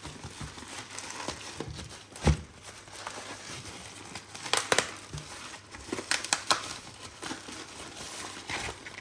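Parcel packaging being crumpled, crinkled and torn open by hand, in irregular bursts, with a sharp knock about two seconds in.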